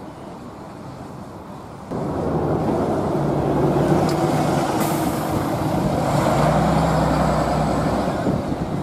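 A bus passing close by, its engine running loudly from about two seconds in, with a short sharp hiss of air about halfway through.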